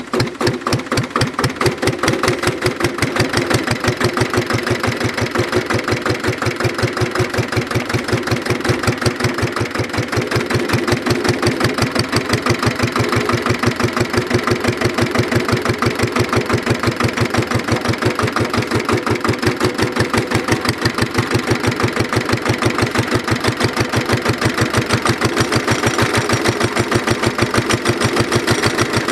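Petter PAZ1 single-cylinder diesel engine running just after a hand-crank start, with a steady, even beat of firing strokes. It picks up and settles within about the first second.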